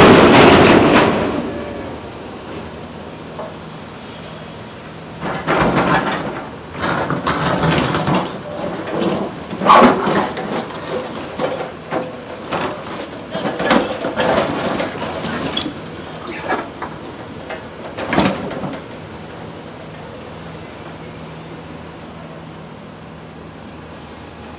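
Excavator diesel running steadily at a track demolition. A loud rushing noise dies away in the first second or so. Then, for about thirteen seconds, heavy material is handled with irregular clanks and bangs, before the engine hum is heard alone again.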